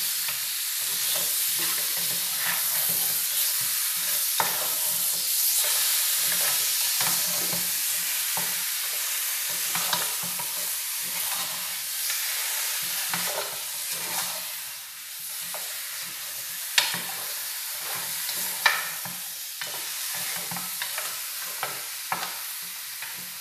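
Chicken pieces sizzling as they fry in lard and garlic in an aluminium pot, with a wooden spoon stirring and scraping through them. Short clicks of the spoon against the pot run throughout, with two sharper knocks about three-quarters of the way through.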